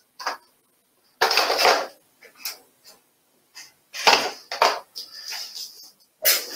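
A Makeblock Neuron kit box and its packaging being handled on a table: irregular scrapes, rustles and knocks with short gaps between them.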